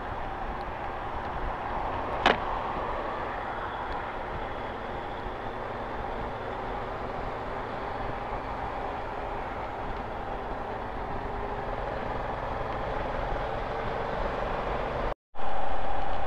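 Honda Africa Twin motorcycle on the move: steady engine and wind noise at riding speed, with one sharp click about two seconds in. Near the end the sound cuts out for a moment and comes back louder.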